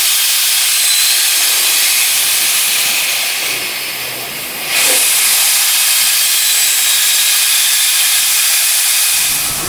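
Steam hissing from the cylinder drain cocks of the Leviathan, a replica 4-4-0 steam locomotive: a loud steady hiss that eases off briefly about four seconds in and comes back strongly just before five seconds.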